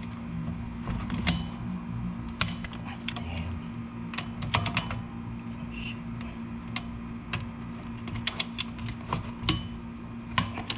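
Irregular metallic clicks and taps of hand tools working the bolts on a brake caliper bracket, over a steady low hum.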